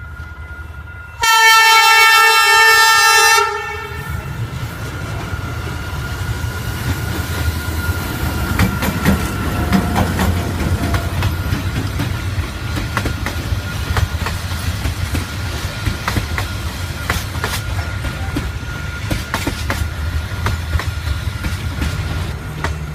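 A train horn sounds one multi-tone blast for about two seconds, a second in. Then a train rumbles steadily past, its wheels clacking over the rail joints.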